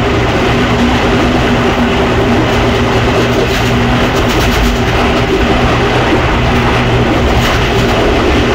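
Diesel train running steadily along the track: a loud, even rumble of wheels on rails with a steady engine hum underneath.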